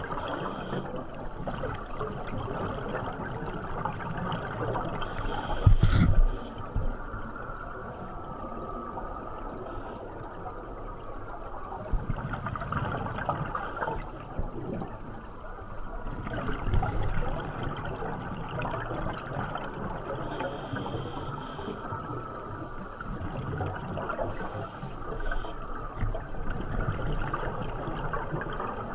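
Muffled underwater sound on a scuba dive: a steady rush of water, with a burst of regulator exhaust bubbles every few seconds. There is a heavy knock about six seconds in.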